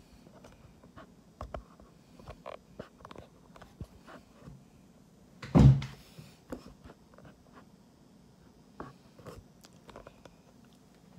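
Handling noise: scattered soft clicks and knocks, with one loud thump a little past halfway as the camera is grabbed and moved.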